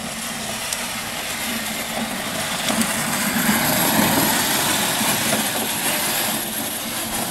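Battery-powered Harley-Davidson ride-on toy motorcycle driving past: its electric drive whirring and its plastic wheels rolling on asphalt. It grows louder as it passes close, about four seconds in, then fades as it drives away.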